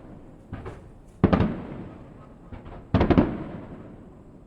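Aerial fireworks bursting: a faint pop, then a loud cluster of bangs about a second in, another faint pop and a second loud cluster near three seconds, each fading out over about a second.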